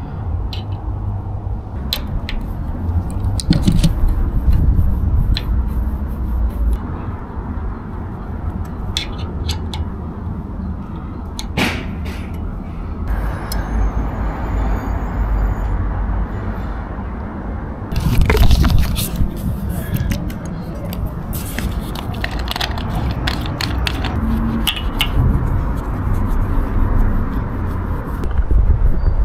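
Background music over a steady low rumble, with scattered small clicks and scrapes from hand work on the deck.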